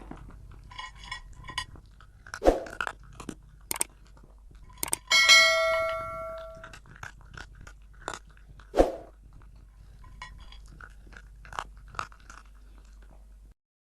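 A string of short clicks and crunching sounds, with a few louder knocks. One bell-like ring about five seconds in dies away over a second and a half.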